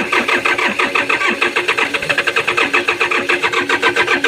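Komatsu diesel engine being cranked by its starter motor, a rapid even chugging with a whining starter tone over it, not yet catching. A hard start that the owner puts down to lost compression.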